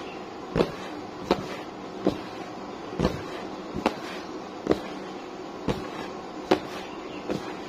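Chicken pieces being tossed and pressed by hand in a container of flour for a crispy fried-chicken coating: a dull thump about every three-quarters of a second, over a steady soft rustle.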